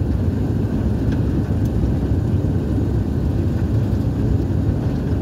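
Jaffar Express trial train in motion: a steady, loud low rumble with no breaks.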